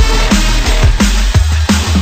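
Loud electronic music with a fast, heavy beat: punchy kick drums about three times a second over a deep, steady bass.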